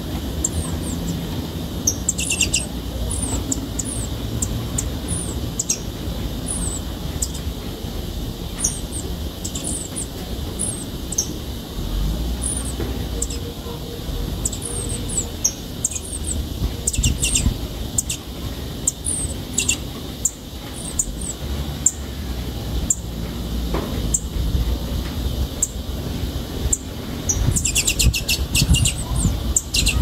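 Canário-do-sertão chick calling from its bamboo nest: many short, high chirps, with faster runs of calls a couple of seconds in, around the middle, and again near the end. The calls are from a nestling ready to fledge, calling to its mother.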